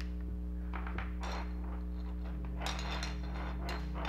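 Plastic parts of a toy being handled and fitted together, in a few short bursts of clicks and clinks, over a steady low hum.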